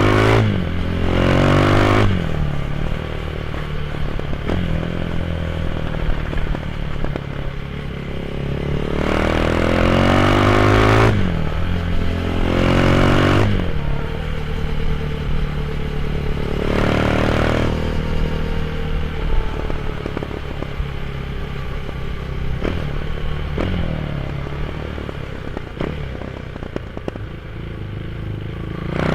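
Motorcycle with an aftermarket GPR exhaust accelerating through the gears. The engine note climbs and drops sharply at each of about four upshifts, then runs at a steadier pitch before starting to climb again near the end.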